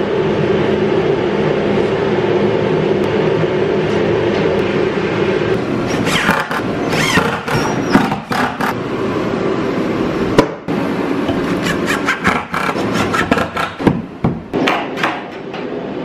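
A propane forced-air heater running steadily with a loud hum. From about six seconds in, knocks and scrapes of a wooden desktop being handled on its metal frame, with short whirs of a drill driving screws.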